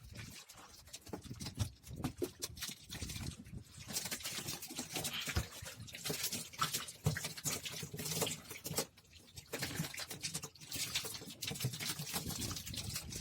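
Water splashing and sloshing with many irregular clicks and knocks, busier from about four seconds in.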